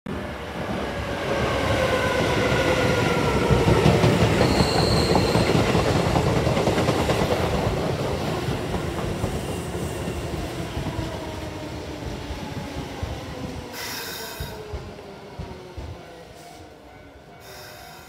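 Keisei Main Line commuter train running into the station, its wheels rumbling on the track while a whine falls steadily in pitch as it slows. A brief high squeal comes about five seconds in and a short hiss near the end, and the rumble fades away.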